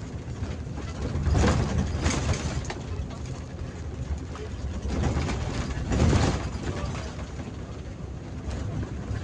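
Bus engine and tyre noise heard from the driver's cab on a wet road: a steady low rumble that swells louder twice, about a second and a half in and again around six seconds.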